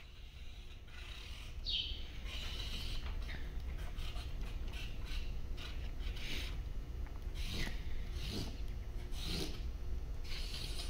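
A marker pen drawn in quick strokes across a sheet of cardboard: a series of short, scratchy rubs, one for each line of a grid.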